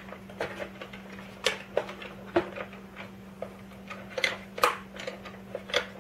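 Hard plastic accessory case being handled and turned over, with scattered, irregular clicks and knocks of plastic from its lid and latches.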